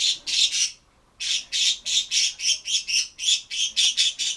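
Bird squawking in a rapid run of short, harsh calls, about four or five a second, with a short break about a second in.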